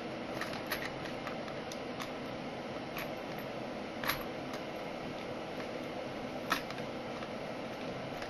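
Small metal parts clicking and clinking in a clear plastic parts box as hands sort through it for copper washers. There are scattered light clicks, the two loudest about four and six and a half seconds in, over a steady background hiss.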